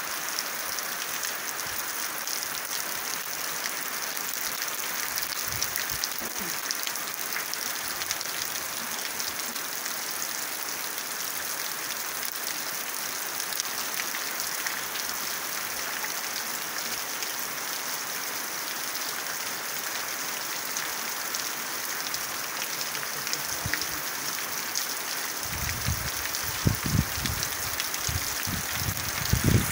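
Heavy rain falling steadily, an even hiss of drops on the ground and foliage. A few dull low thumps near the end.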